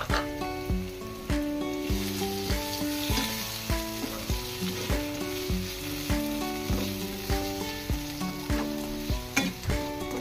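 Onion, garlic and tomato sizzling as they sauté in a frying pan, stirred with a spatula, under background music with a steady beat.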